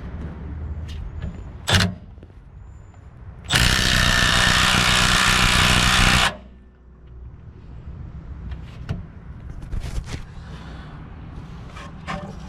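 Milwaukee M12 Fuel right angle impact wrench: a brief blip of the trigger, then a loud, steady burst of hammering on a fastener for nearly three seconds that stops abruptly.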